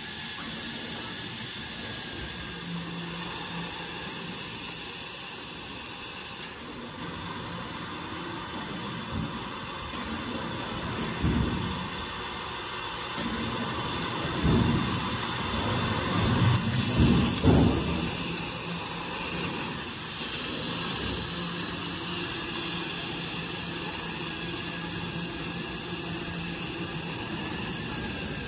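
CNC oxy-fuel cutting torch hissing steadily as it cuts through thick steel plate. About halfway through there is a louder, uneven stretch of low rushing noise.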